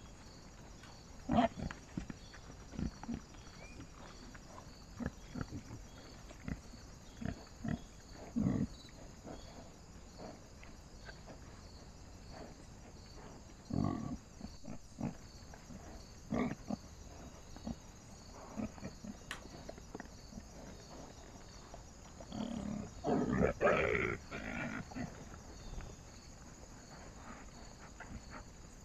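Wild boar sow and piglets foraging, with scattered short grunts and snuffles. About three-quarters of the way through comes a longer burst of louder grunting calls. Played back at double speed.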